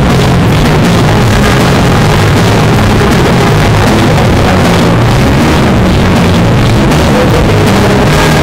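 Live band music, with bass and keyboards, played loud in a concert hall and recorded on an overloaded phone microphone, so it comes through heavily distorted.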